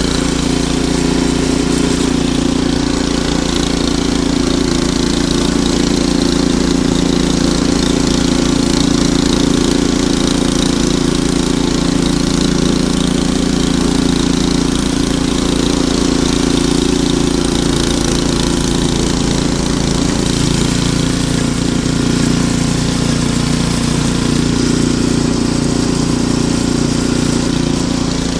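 Ariens Deluxe 28 snowblower's engine running steadily, its note shifting slightly about two-thirds of the way through.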